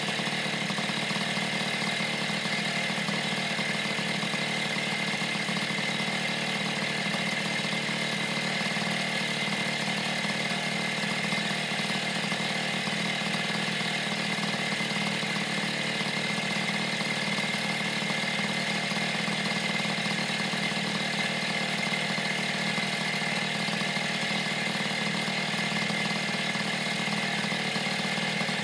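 Honda Express moped's freshly rebuilt 49 cc two-stroke engine idling steadily, running after the rebuild.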